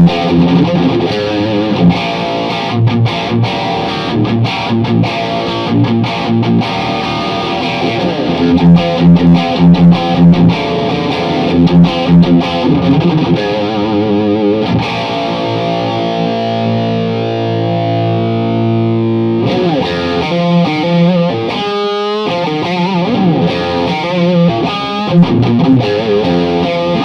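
Electric guitar played through a Tone City Golden Plexi overdrive pedal, giving a crunchy, distorted amp-like tone. Riffs and chords, with one chord left ringing for a few seconds about halfway through, then choppier rhythm playing.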